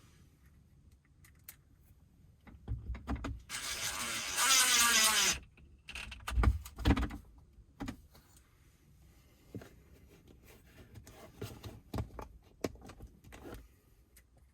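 Cordless drill-driver running for about two seconds, a motor whine that drops in pitch as it slows at the end, driving a screw into the trim. Sharp knocks and clicks of the plastic console parts come before and after, the loudest a couple of seconds after the motor stops.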